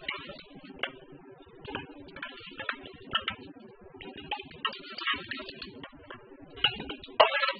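Metal tongs clicking and pieces of dried beef dropping into a stainless steel pot, making irregular knocks and clatters, the loudest just before the end.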